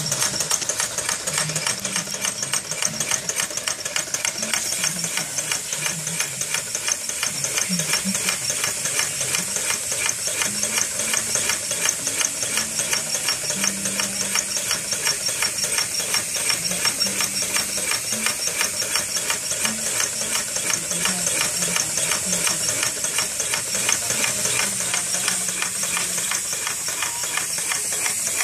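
Twin-cylinder model vacuum engine, driven by a vacuum cleaner's suction through a hose, running at speed with a rapid, even clatter of its pistons and valves over a steady hiss of drawn air.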